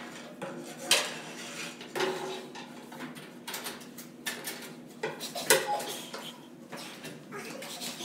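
Metal stairwell door and its lever handle being felt for and worked by hand: a string of metallic clicks, rattles and knocks, the sharpest about a second in, two seconds in and five and a half seconds in, with scuffing between.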